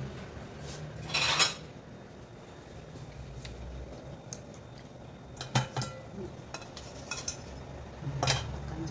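Kitchen utensils and dishes clinking and knocking: a louder scraping rattle about a second in, then a few separate sharp knocks in the second half.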